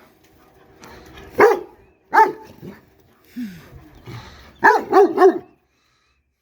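A big dog barking in a 'temper tantrum' on command: a string of short, pitched barks, each rising and falling in pitch, ending in a quick run of three about five seconds in.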